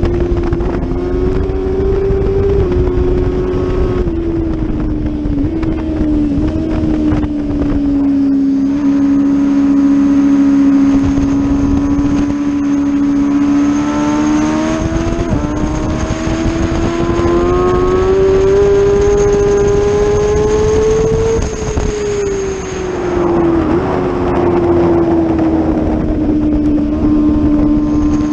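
Sport motorcycle engine running hard at high revs, ridden at speed with wind rush. The engine note holds steady, climbs slowly as it pulls down a straight, then drops with a short blip as it slows into a corner.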